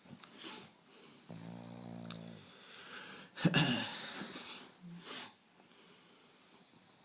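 A sleeping pug snoring loudly. There is a droning snore from just over a second in, then a louder, rougher, wheezy breath about three and a half seconds in, with shorter snuffling breaths before and after.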